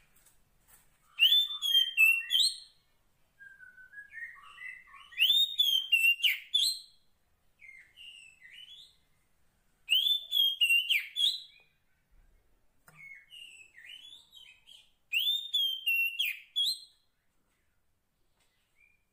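Female oriental magpie-robin (kacer poci) calling to a male. Four loud whistled phrases come a few seconds apart, each a bright slurred whistle with quick notes, and softer twitters fall between them.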